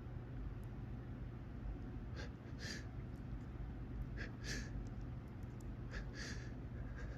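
A person drawing quick breaths in short pairs, three times about two seconds apart, during a sneezing fit set off by bright sunlight, the gasps that come as a sneeze builds.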